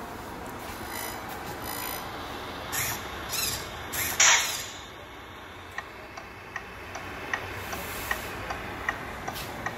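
Three short hisses, the last the loudest, then a steady light ticking about two and a half times a second.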